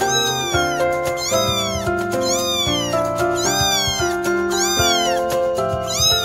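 Young kitten meowing repeatedly, about one short high mew a second, each rising then falling in pitch. Background music plays under the meows.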